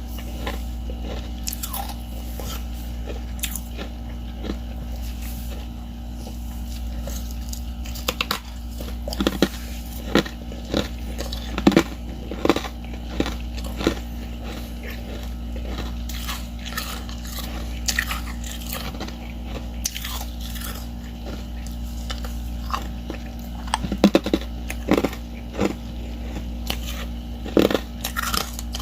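Someone biting and chewing ice chips made from crushed ice slabs coated in powdery freezer frost: irregular sharp crunches, with the loudest bites bunched in the middle and near the end. A steady low hum runs underneath.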